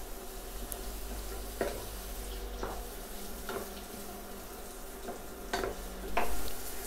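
Sliced onions, garlic and ginger sizzling in hot oil in a pan, with a wooden spatula stirring them and scraping the pan in several short strokes.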